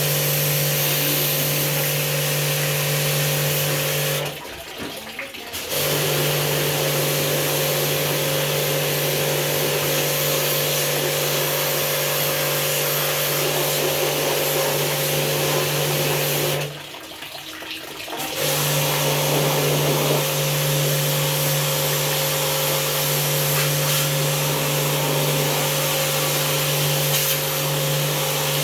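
Electric water jet pump running with a steady hum while spraying water in a hissing jet for air-conditioner cleaning. It stops twice for about a second and a half and starts again.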